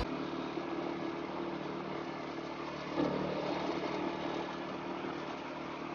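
A vehicle engine running steadily, a constant drone over a haze of road or wind noise.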